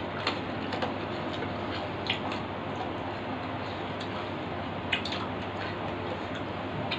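Two people eating roti and meat curry by hand from steel plates: a few short wet clicks and smacks of chewing and handling food, over a steady background hiss.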